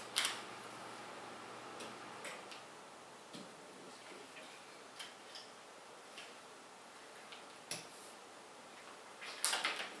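Irregular small clicks and taps of computer parts and screws being handled and fitted on a tabletop, with a quick burst of louder clatter near the end.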